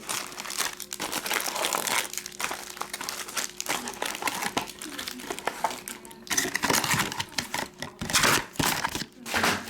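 Crinkling of foil trading-card pack wrappers being handled and opened, in irregular rustling spurts that grow louder near the end.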